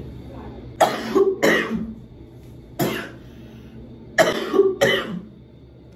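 A person coughing five times: two harsh coughs about a second in, a single cough near the middle, and two more about four seconds in.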